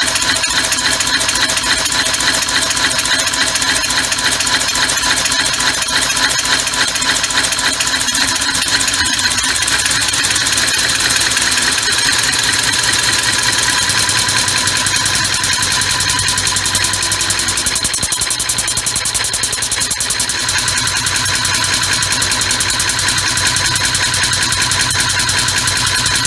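Homemade three-cylinder, six-stroke compressed-air engine running steadily through a pressure regulator, a fast, even stream of pulses with its flywheel spinning. Its note changes slightly about twenty seconds in.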